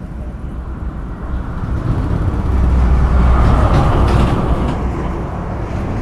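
A passing motor vehicle: a low rumble that swells to its loudest about three seconds in and then fades.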